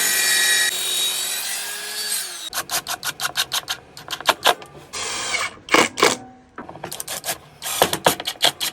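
A power saw runs and winds down about two seconds in. Then come a quick series of sharp knocks and clicks as wood and tools are handled, and a brief burst of a power tool about five seconds in.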